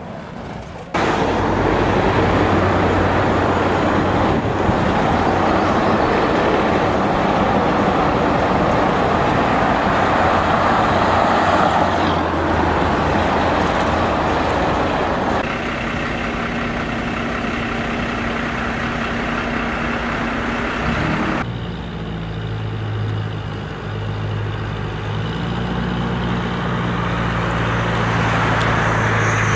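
Highway traffic noise: cars and trucks running, with a steady low engine hum. The sound changes abruptly several times, first about a second in, then about halfway through and again about two-thirds through.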